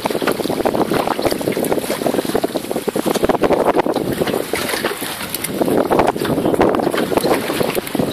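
Wind buffeting the microphone on a small open boat at sea, a steady, ragged noise over the wash of the water.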